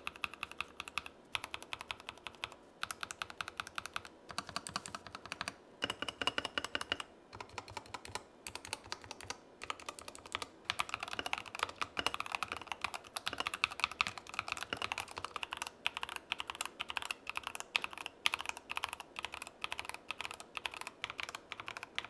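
Tecware Phantom Plus Elite mechanical gaming keyboard with Tecware's own pre-lubed switches being typed on: a dense run of keystrokes with a few brief pauses.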